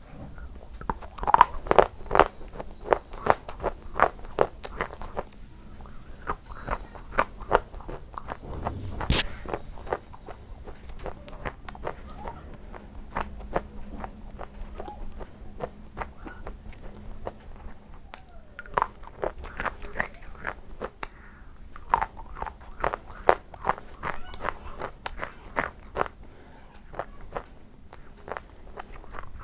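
Close-miked crunching and chewing of mixed potato chips: runs of rapid, sharp crunches with quieter pauses between bites, and one especially sharp crack about nine seconds in.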